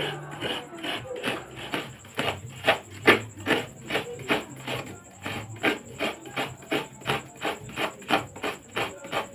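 Hand food preparation in rapid, even strokes, about four a second, each a short scrape.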